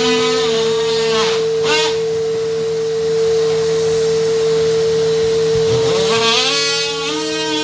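DeWalt cordless oscillating multi-tool running and cutting, with a steady high hum. Its overtones dip and glide in pitch twice, about a second and a half in and again near the end, as the blade loads up in the cut.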